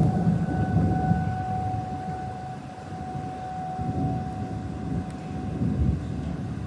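Federal Signal 2001 outdoor warning siren sounding a steady tornado-warning wail, strongest about a second in and growing fainter later, over a low rumble.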